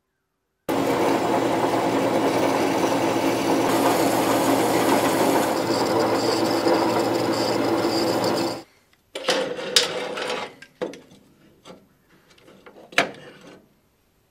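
DoALL C-4 metal-cutting band saw cutting through a steel block, a steady loud sound that starts suddenly near the start and stops abruptly about eight and a half seconds in. Then a few sharp metal clinks and knocks as the cut steel part is handled in the saw's vise.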